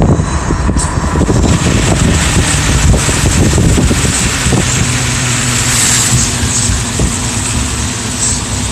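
A motor vehicle running amid a loud, steady rushing noise. A low engine hum becomes clearer about halfway through.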